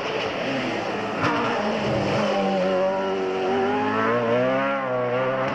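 Open-wheel single-seater race car's engine, low on revs through a hairpin, then accelerating away with the revs climbing over the last few seconds.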